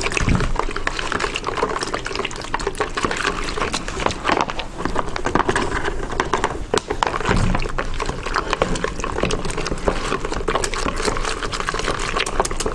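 Alginate powder being poured from a crinkling foil bag into a plastic bucket of water and mixed quickly with a plastic spatula: wet stirring and scraping with many small crackles and clicks. There are a couple of low knocks, one near the start and one about seven seconds in.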